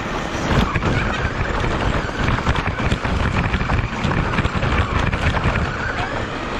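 Radio-controlled car driving, heard from a camera mounted on the car: a rushing noise with many quick knocks and rattles as the chassis jolts over pavement and rough ground, and a faint motor whine that rises and falls.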